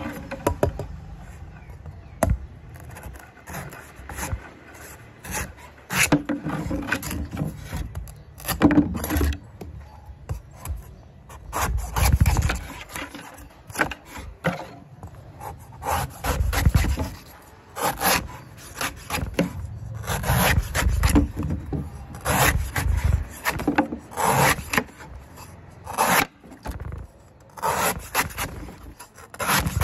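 A large cleaver slicing and shaving through a coconut's thick spongy husk, in irregular scraping strokes every second or two, with sharp knocks among them.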